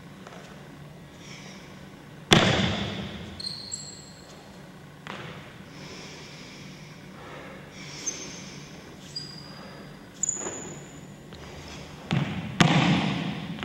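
Hard stamps or slaps from a martial artist performing a kung fu form. Two loud hits come about two seconds in and near the end, with lighter thuds between them and a few brief high squeaks.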